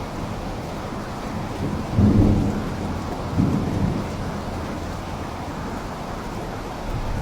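Steady rainfall with two low rumbles of thunder, one about two seconds in and a weaker one a second or so later.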